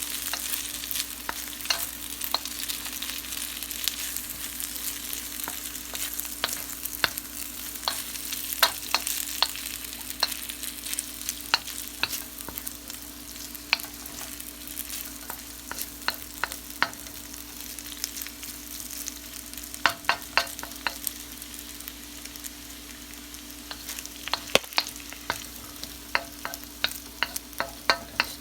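Food sizzling in a frying pan during a stir-fry, with frequent sharp clicks and scrapes of a utensil stirring against the pan, coming in clusters. A steady low hum runs underneath.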